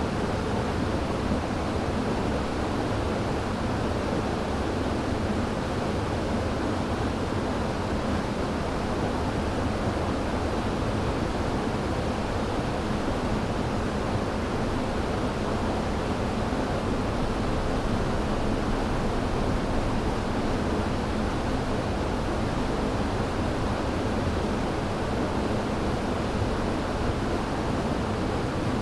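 River water rushing over rocks: a steady, unbroken roar of flowing water, strongest in the low and middle range.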